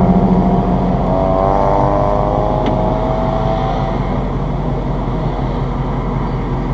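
Car engine running and accelerating, heard inside the cabin: a steady low hum with an engine note that rises slowly in pitch for a few seconds, then settles into road and engine noise.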